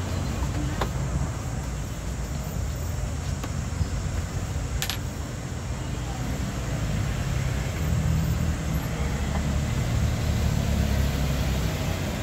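Steady low rumble, like road traffic, a little louder near the end, with a few sharp clicks, the clearest about five seconds in.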